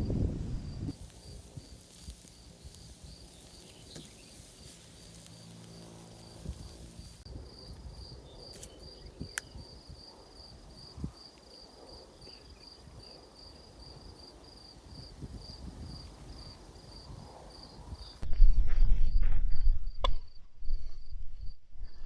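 Insects chirping in a steady, even pulse, about three chirps a second. Near the end a loud low rumble with a few clicks comes in over it.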